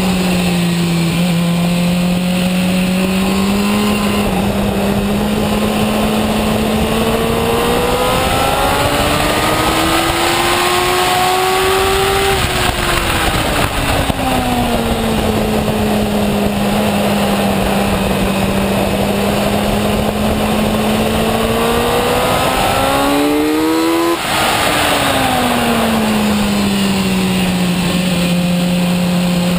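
Sport motorcycle engine heard from on board at track speed, over steady wind rush. The engine note holds, then climbs and falls back twice as the bike accelerates and slows for corners; the second climb is steep and drops off abruptly.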